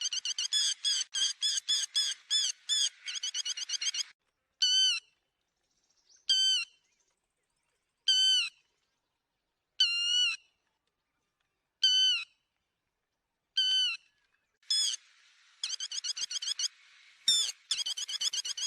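Lapwing calls, a lure recording for netting lapwings: a fast chattering run of repeated notes, then single sharp calls about every two seconds, then fast chattering again near the end with one loud call cutting in.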